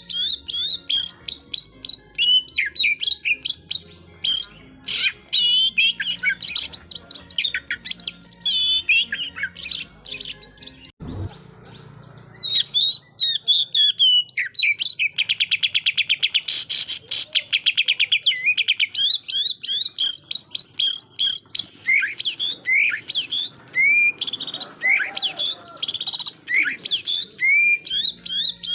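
Oriental magpie-robin singing a fast, varied song of whistles and chirps in the rapid-fire 'shooting' style used to provoke rival males, with a long buzzing rattle of quickly repeated notes about halfway through. A single dull thump sounds about eleven seconds in.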